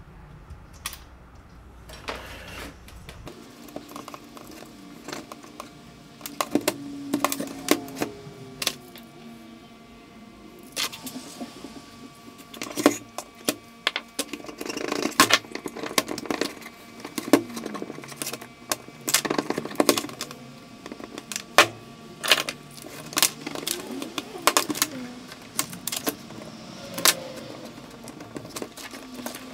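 Small metal parts and hand tools being handled, giving irregular clinks, clicks and taps. They are sparse at first and come thick and fast from about six seconds in.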